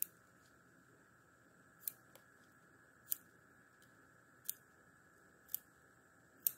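Small scissors snipping through thin sheet backing material: six short, sharp snips, one every second or so, over a faint steady hum.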